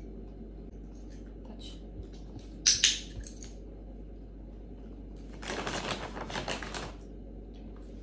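A dog-training clicker snapping once, its quick double click-clack of press and release marking the dog's nose touch on the target. A couple of seconds later comes about a second and a half of crackly rustling.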